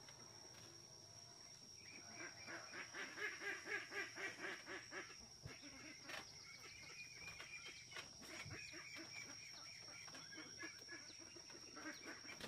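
Poultry calling in runs of short repeated calls, about three a second, loudest a couple of seconds in and then weaker. A thin steady high-pitched tone runs underneath.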